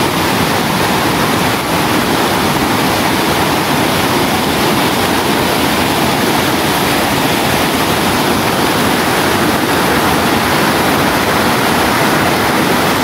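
Shallow stream rushing over rocks: a steady, loud rush of water.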